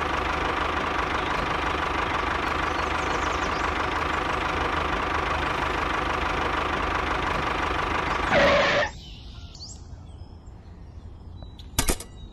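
A small engine or motor running steadily, which stops abruptly about eight and a half seconds in with a short louder sweep. Two sharp clicks come near the end.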